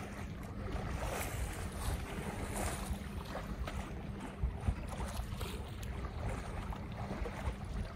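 Water rushing and splashing along the hull of a sailboat under sail, with wind on the microphone.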